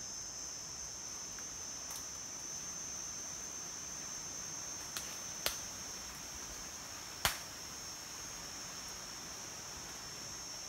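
Steady high-pitched drone of insects in forest undergrowth, with three sharp snaps about five to seven seconds in, the last the loudest.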